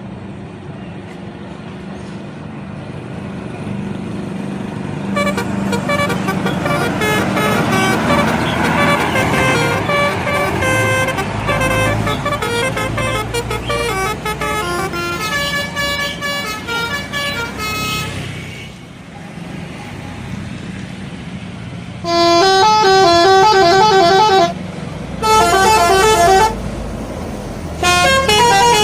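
Bus telolet horn, the multi-note musical horn of Indonesian buses, playing rapid stepping melodies over a running bus engine. From about five seconds in, a long run of notes swells louder and then fades. Near the end, three short, much louder bursts of the tune follow.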